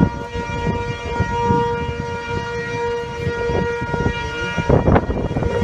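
Outdoor tornado warning siren sounding a long steady tone that swells and fades. Wind buffets the microphone underneath, with a strong gust near the end.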